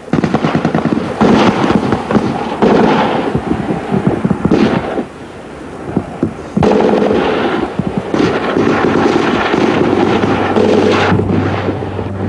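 Sustained gunfire, many rapid shots from rifles and automatic weapons in close succession, easing for about a second and a half around five seconds in, then picking up again.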